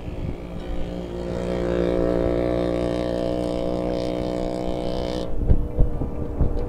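A motor vehicle's engine running steadily close by, an even droning hum. About five seconds in the higher part of the sound drops away and low thumping rumbles take over.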